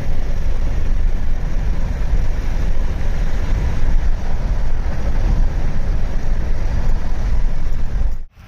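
Steady low rumble of a moving vehicle, like road noise heard from a car, cutting off abruptly near the end.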